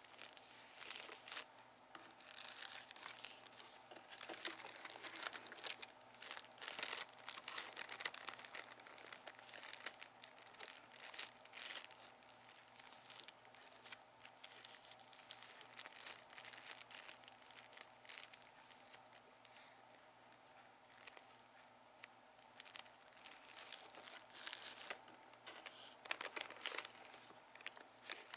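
Paper and plastic packaging crinkling and rustling as fingers handle it inside a cardboard box. The crinkles come irregularly, busiest over the first dozen seconds and again near the end, with a quieter stretch between.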